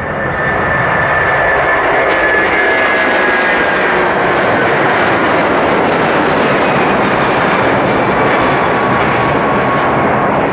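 Airbus A340-600's four Rolls-Royce Trent 500 jet engines at take-off thrust as the airliner lifts off and climbs away. A loud, steady jet noise that swells in the first half-second and then holds, with a faint whine drifting slowly down in pitch.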